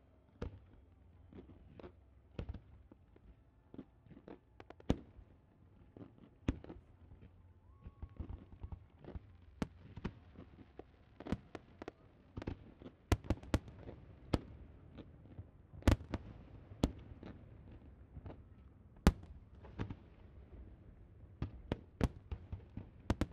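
Fireworks display: many bangs at irregular intervals, some in quick clusters, with the loudest ones in the second half and a low rumble between them.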